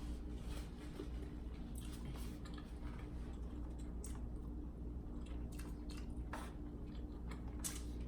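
A person chewing food close to the microphone, with wet mouth sounds and scattered small clicks over a steady low hum.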